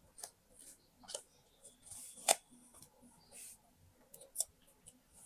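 Scissors snipping paper: several separate short, crisp snips, the loudest a little past two seconds in.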